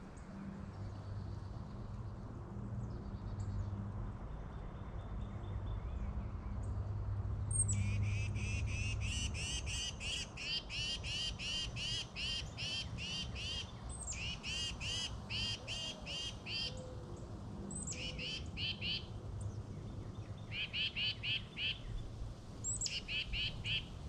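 A small bird chirping in rapid series of short, high calls, about three a second, in several bouts starting about eight seconds in. A low steady rumble runs underneath.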